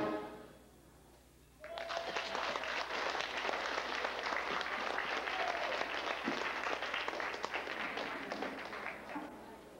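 The last chord of a brass band dies away, then the audience applauds, starting about a second and a half in and fading near the end.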